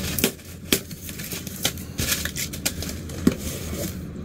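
Cardboard shipping box being opened by hand and its packaging pulled out, a string of irregular paper and cardboard rustles and crinkles.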